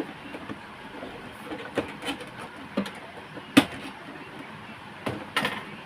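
Scattered plastic clicks and knocks from handling the Epson L380 printer as its scanner unit is taken off, with one sharper knock about three and a half seconds in.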